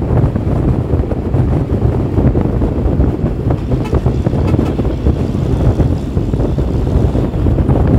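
Steady low rumble of a moving vehicle's engine and road noise heard from inside, with wind buffeting the microphone through the open side window.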